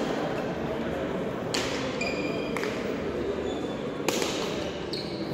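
Rally of frontón pelota dura: the hard ball cracks sharply when struck by hand and off the front wall and floor, several times a second or more apart, each crack echoing through the hall. A steady murmur of crowd voices runs underneath.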